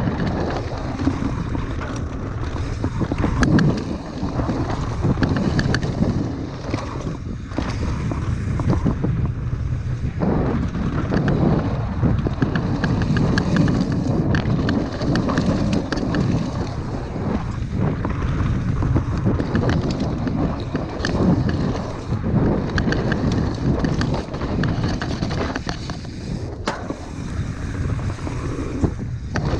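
Mountain bike running fast down a dirt trail: tyres rumbling over the ground, with frequent rattles and knocks from the bike over bumps and roots, under heavy wind noise on the microphone.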